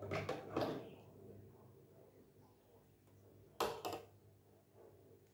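A few short knocks against quiet room tone: a cluster in the first second and a sharper double knock about three and a half seconds in.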